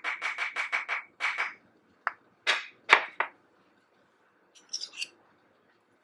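A spoon scrapes rapidly around the inside of a small bowl, about seven strokes a second, mixing a paste. Then come a few sharp clinks of spoons against ceramic and glass.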